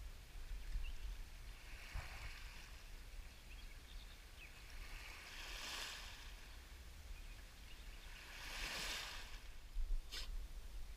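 Small waves washing onto a pebble shore, swelling and fading three times about three seconds apart, over a low steady rumble. A couple of sharp clicks near the end.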